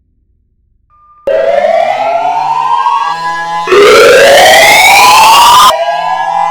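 A siren starting about a second in with a loud rising wail, then cutting off abruptly and restarting twice, each time sweeping up in pitch from low again.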